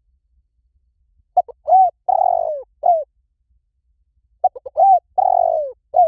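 Spotted dove cooing. It gives two phrases about three seconds apart, each a few short quick notes leading into longer coos and ending on a falling note.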